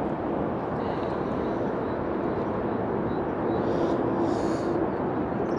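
Steady low rumble of outdoor background noise, with a faint steady hum coming in about halfway through.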